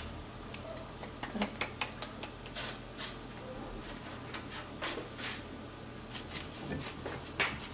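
Scattered light taps and rustles of hands patting and turning a blue corn tortilla on a pan and handling the plastic sheet of a tortilla press, over a faint steady low hum.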